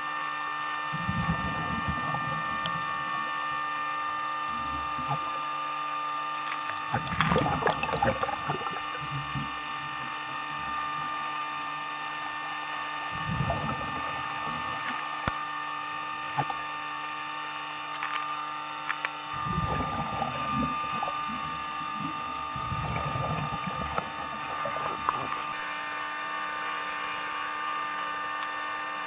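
Gurgling bursts of scuba regulator exhaust bubbles, one breath out every few seconds, heard underwater over a steady hum.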